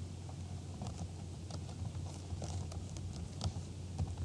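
Typing on a computer keyboard: an irregular run of key clicks as a file name is entered.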